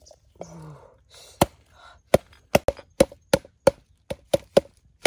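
Large cleaver-like knife chopping garlic cloves on a round wooden chopping block: sharp single chops of blade on wood, the first about a second and a half in, then a quicker run of about two to three a second.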